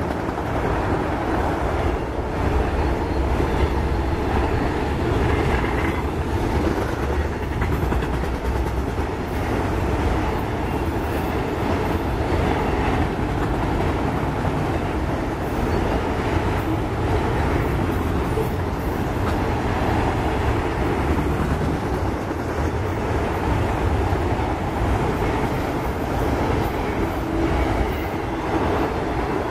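Autorack cars of a CSX freight train rolling past: a steady, continuous rumble of steel wheels on rail, with occasional faint clicks.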